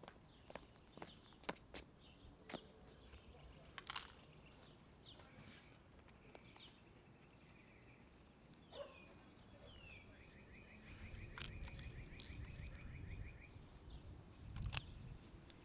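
Near silence: faint bird chirps and, partway through, a rapid trill, with a few soft taps in the first few seconds and a low rumble toward the end.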